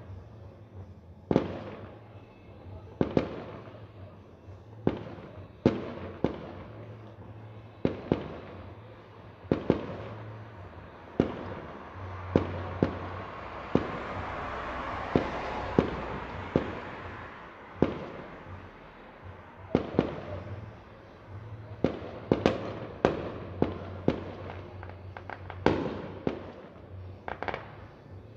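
Aerial fireworks display: shells bursting with sharp bangs about every second or two, each trailing off in an echo. Around the middle there is a stretch of dense crackling and hissing.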